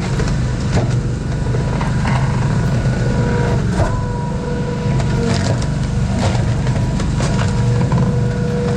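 Hydraulic log splitter running steadily under load, with a steady whine and several sharp cracks as red oak logs split.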